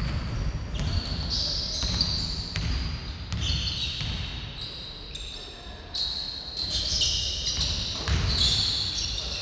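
A basketball bouncing on a wooden gym floor, with players' sneakers squeaking in short high chirps as they run and cut, echoing in the hall.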